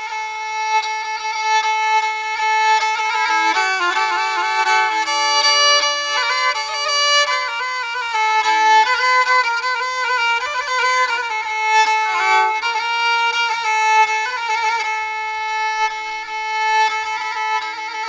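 Instrumental music led by a bowed violin playing a melody with vibrato.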